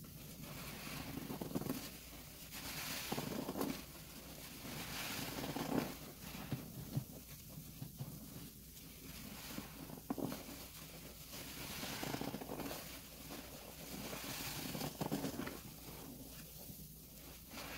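Dense wet sponges squeezed by hand in a basin of thick pine-cleaner suds: repeated wet squelching and frothy crackling of foam, a squeeze about every one and a half to two seconds.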